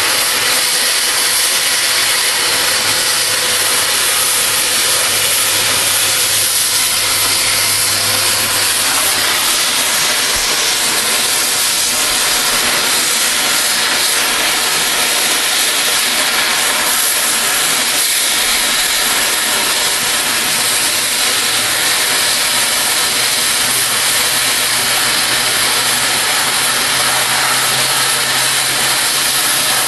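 Cutting torch hissing steadily as it flame-cuts through steel railroad rail, with a faint low hum in the background.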